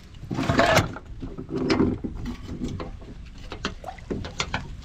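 Fishing reel and tackle being worked in an aluminium boat: a loud burst of noise about half a second in, then irregular mechanical clicks and knocks as the reel is cranked.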